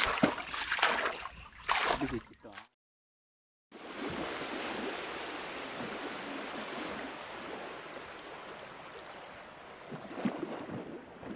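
Paddle strokes splashing in the water beside a wooden dugout canoe, then after a brief cut a steady watery rush as the canoe glides, with a few more splashes near the end.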